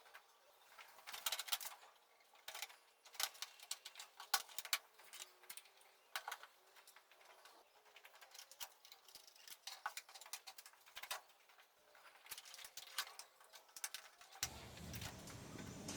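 Faint, irregular light clicks and taps, with a steady low room hum coming in near the end.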